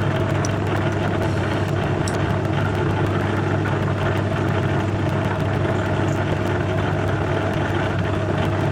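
Metal lathe running steadily with its motor humming, turning an odd-shaped cast pump gland held in a 4-jaw chuck.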